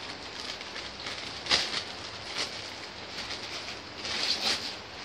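Plastic delivery bag and wrapping crinkling and rustling as they are torn open and handled, with louder crackles about a second and a half in and again near the end.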